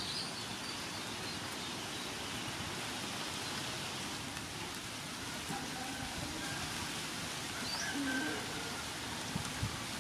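Steady outdoor background hiss with a few faint bird chirps, one a brief rising whistle about eight seconds in. Near the end, two knocks of a cleaver on a wooden chopping board.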